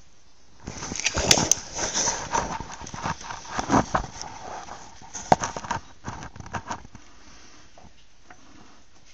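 Irregular metallic clattering and knocking for about six seconds, with a few sharp clicks, as the exposed mechanism is worked.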